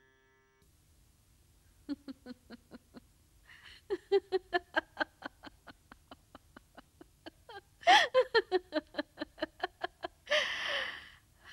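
A woman laughing: a long run of quick, even ha-ha pulses, about six a second, louder around eight seconds in and ending in a breathier burst of laughter.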